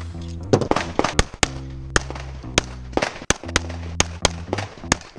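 A fast string of pistol shots, a dozen or so sharp cracks in quick irregular succession, over background music with sustained bass notes.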